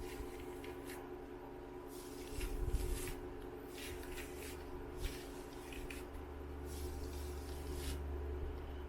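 Denman brush drawn through damp, product-coated curly hair: repeated soft brushing strokes, roughly one a second.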